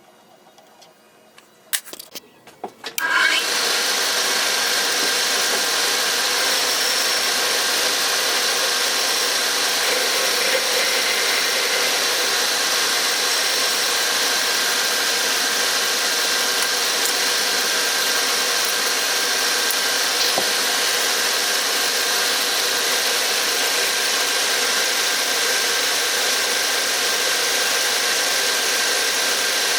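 A few clicks and knocks, then a power tool's electric motor starts about three seconds in and runs steadily.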